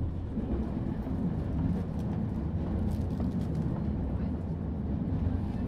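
Passenger train rolling along the track, heard from inside the coach: a steady low rumble with faint scattered clicks.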